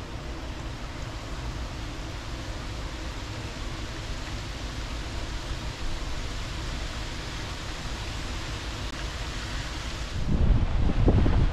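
Steady rushing of wind and water with a low rumble, heard from a moving ship. About ten seconds in, wind gusts buffet the microphone loudly.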